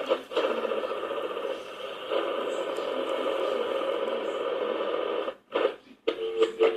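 Radio being tuned across the dial: static and garbled snatches of stations, cutting out twice near the end and then settling on a steady two-note whistle.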